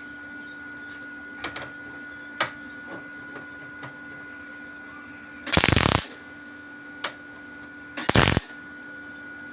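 Two short bursts of welding arc noise, each about half a second and a couple of seconds apart: tack welds fixing a pipe inside a pipe for a stainless steel wheel. A steady hum and a few faint clicks lie under them.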